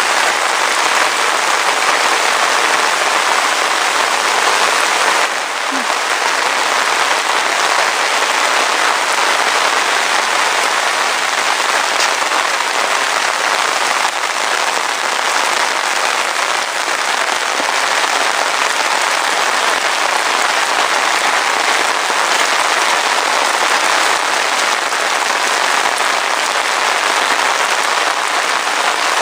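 Heavy rain falling steadily, a dense, even hiss and patter of drops hitting surfaces.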